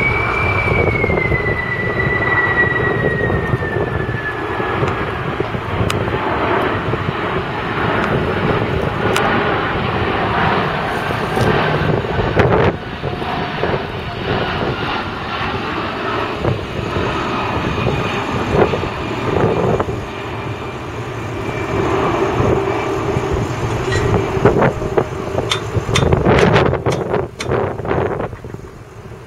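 Boeing 747 cargo jet's four turbofan engines roaring as it flies low overhead on landing approach, with a high fan whine that falls in pitch over the first few seconds as it passes. A few sharp crackles come near the end as it draws away.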